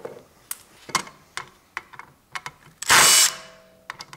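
Light clicks of small screws and tool handling, then about three seconds in a Makita brushless cordless impact driver runs in one short half-second burst, backing a screw out of the metal case of an electric power-steering control unit.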